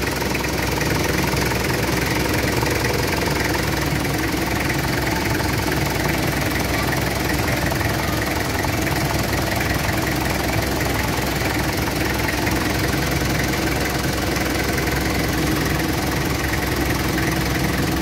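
Toyota 2L four-cylinder diesel engine idling steadily, with no change in speed.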